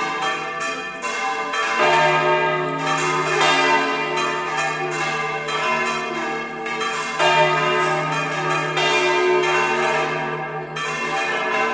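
Church bells rung by full-circle swinging (volteo): several bells clanging over one another in a continuous peal, with a deep bell note coming back about every five seconds.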